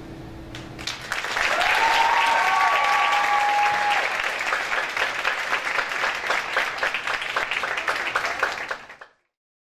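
Audience applauding and cheering. It opens on the last guitar chord dying away, the clapping starts about a second in with a few drawn-out whoops over it, then thins and cuts off abruptly near the end.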